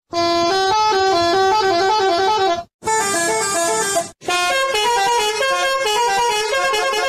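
Multi-tone musical bus horn, telolet-style, playing a quick melody of stepped notes, breaking off briefly twice partway through.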